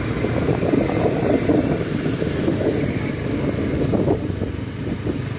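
Motorcycle running at riding speed, its engine rumble mixed with road and wind noise at the microphone.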